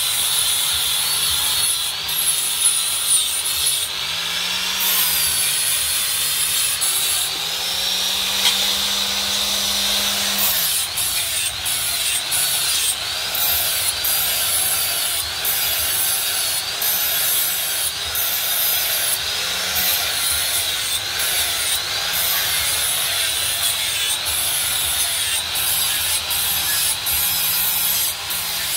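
Handheld electric angle grinder running continuously as its disc grinds the edge of a steel cleaver blade to sharpen it, with the motor's pitch shifting now and then as the blade is pressed on.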